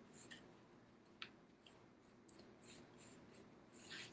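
Faint, scratchy swishes of a paintbrush stroking paint across a paper plate, a handful of short strokes with one sharper tick a little after two seconds in.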